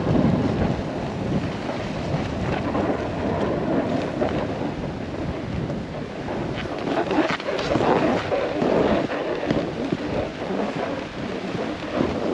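Wind gusting over a helmet camera's microphone as a rumbling hiss, with a snowboard sliding slowly over sticky snow. The board is barely gliding because the snow is sticky.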